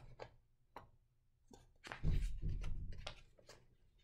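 Pages of a paperback book being handled and turned by hand: a few faint clicks, then soft paper rustling with a low bump of handling noise about two seconds in.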